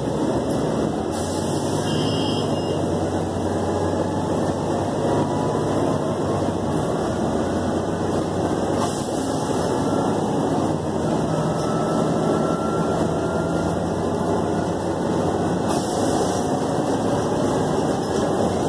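Big Blue Bus city bus heard from inside the passenger cabin while under way: steady engine and road noise, with a faint whine that rises in pitch now and then.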